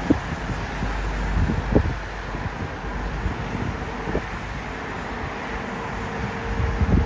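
Distant Airbus A320-family jet airliner taxiing, its engines a steady rumble, with a few gusts of wind thumping on the microphone.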